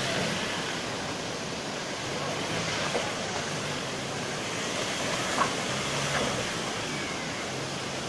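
A 4x4 pickup truck's engine running at low revs, crawling through undergrowth, over a steady rushing noise of flowing river water. A short knock about five seconds in.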